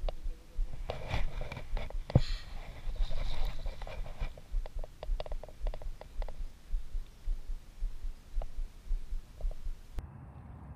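Spinning reel cranked through a lure retrieve, heard through the chest-mounted camera as a steady run of soft low thumps about two a second, with a few light clicks and rustles. Near the end it gives way to a quieter steady hum.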